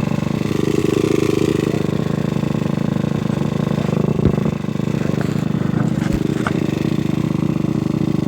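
Off-road motorcycle engine running steadily during a trail ride, with a sharp knock about four seconds in and another about six seconds in.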